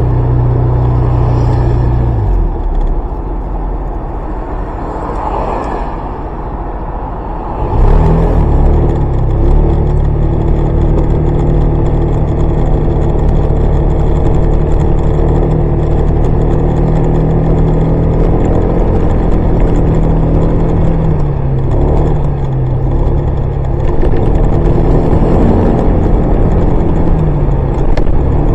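Honda PCX125 scooter's single-cylinder four-stroke engine running under way. The engine note falls back about two seconds in, then picks up sharply about eight seconds in and holds a steady pitch. It dips briefly a little past twenty seconds before pulling again.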